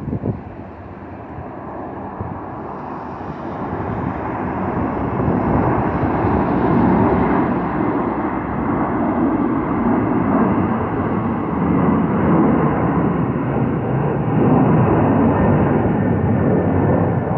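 Jet engine noise of a twin-engine widebody airliner climbing out overhead. It builds over the first five seconds or so, then stays loud and steady as a deep rumble.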